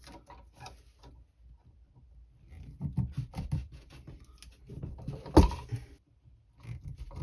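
Wire strippers working on electrical wires: small clicks, rattles and scrapes as the jaws close on the insulation and pull it off, with one sharp snap about five seconds in.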